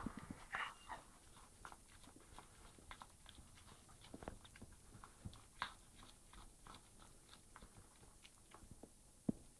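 A cat chewing a piece of beef steak: faint, irregular clicks and crunches of biting and chewing, a few a second.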